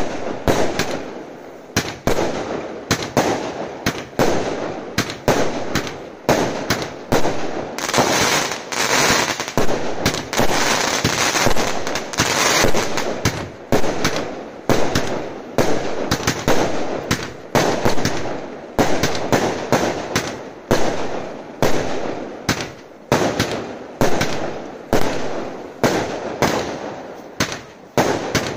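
Caractacus Potts Avengers Barrage Pack fireworks firing shot after shot: a run of sharp bangs about once a second as each shell launches and bursts. There is a spell of dense crackling from about eight to thirteen seconds in.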